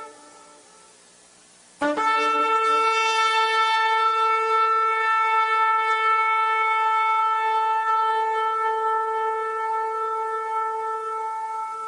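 A single long horn blast. After a brief pause it starts abruptly about two seconds in and holds one steady pitch for about ten seconds, slowly fading toward the end.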